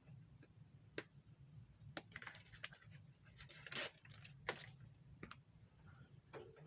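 Hands working on parts: rustling, scraping and crinkling with a few sharp clicks, the loudest stretch of rustling a little before the middle.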